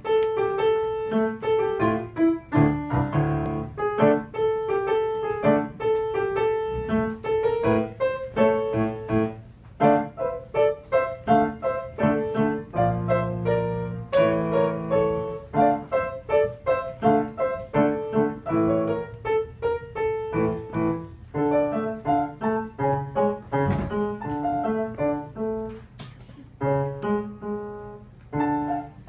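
Grand piano played solo: a steady stream of quick notes around a recurring middle note, with heavier low chords about halfway through.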